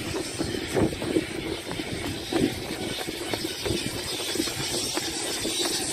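Music from Myria MY8037 speakers at low volume, heard faint and muffled from a distance, mixed with a steady outdoor rumble and uneven thumps of footsteps and camera handling.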